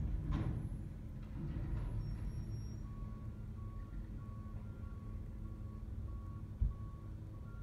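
Front-loader garbage truck's backup alarm beeping about twice a second from about three seconds in, over the truck's steady engine rumble. There is a metallic clang near the start and a dull thump near the end.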